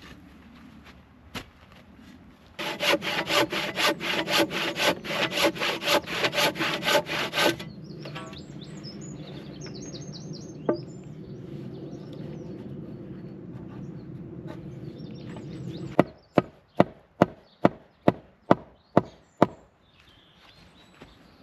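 A fast, rhythmic rasping of about five strokes a second lasts some five seconds, followed by a steadier rough noise. Then come about ten quick hammer blows on the diagonal timber brace where it butts into the fence post.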